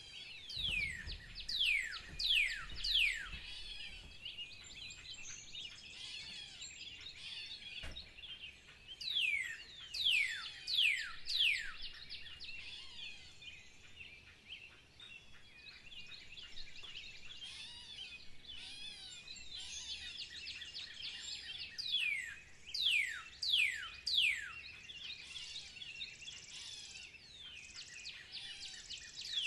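Birdsong: a chorus of small birds chirping steadily, over which one bird repeatedly sings a short series of loud, sharply falling whistled notes, four bursts in all.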